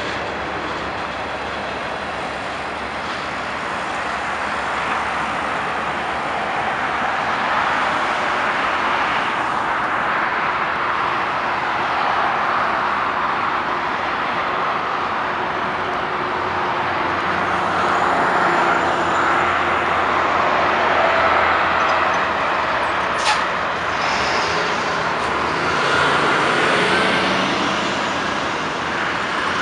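Steady road traffic on a busy highway, cars and heavy trucks passing close by, with one sharp click about three quarters of the way through.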